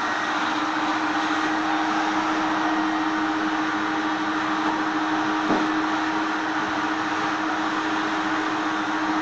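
Vacuum cleaner motor running steadily, a constant whooshing roar with a steady hum, with a single brief knock about halfway through.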